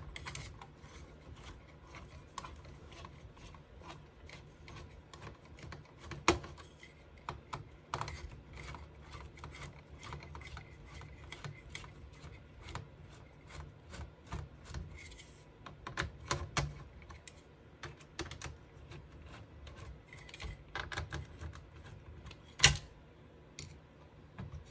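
Small irregular clicks and scrapes of a screwdriver working the screws out of a desktop PC's CPU heatsink, with one sharp knock near the end.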